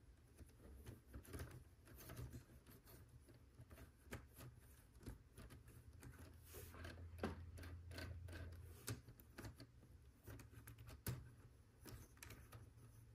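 Faint, scattered clicks and taps of plastic LEGO Technic pieces being handled and fitted onto the model.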